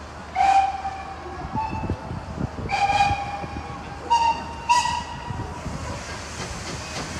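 Steam locomotive whistle giving four short toots, the last two shorter and slightly higher, over the low rumble of the train.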